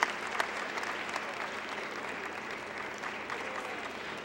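Audience applauding steadily, with a few sharper individual claps standing out near the start.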